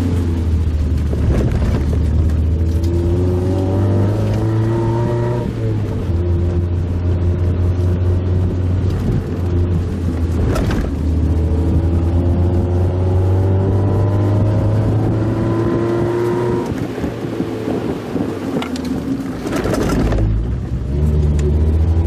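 Mazda Roadster (MX-5 Miata) four-cylinder engine heard from inside the open-top cabin while driving. The revs climb steadily and drop suddenly about 5 s and 16 s in, as the gears are changed. There is road rumble throughout, and brief thumps from the road near the middle and again near the end.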